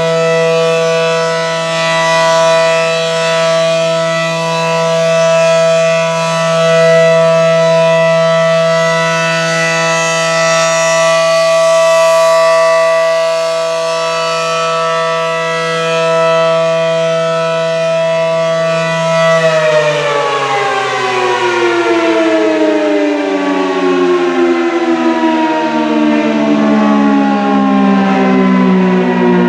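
ACA Allertor 125 rotating outdoor warning siren sounding its steady alert tone, swelling and fading in loudness as it rotates. About two-thirds of the way through the signal ends and the siren winds down, its pitch falling steadily.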